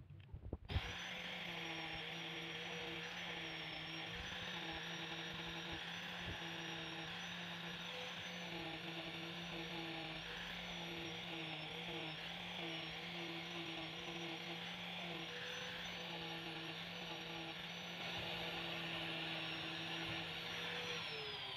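Electric angle grinder with a sanding disc running steadily while sanding wood, its motor whine holding one pitch. It starts about a second in, and near the end its pitch falls as the motor winds down.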